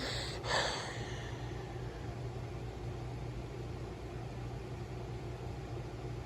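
Steady low hum and hiss of background noise, with one brief noisy swish about half a second in.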